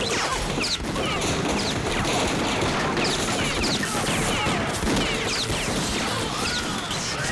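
Film sound effects of sustained heavy gunfire: many shots in quick succession, without pause, mixed with short falling whines like ricochets.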